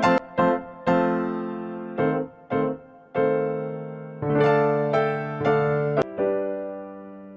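Background piano music: a run of struck chords, the last one ringing out and slowly fading.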